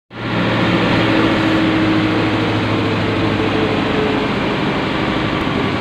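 Amphibious truck's engine running steadily while driving, heard from inside the cab as a loud, even drone.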